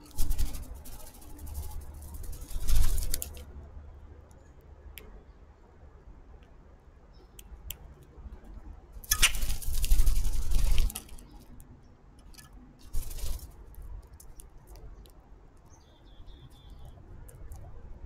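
Birds pecking and scraping at a wire suet cage right beside the camera: bursts of rapid tapping and knocking, one at the start, a longer one in the middle as a red-bellied woodpecker pecks the suet, and a short one after it.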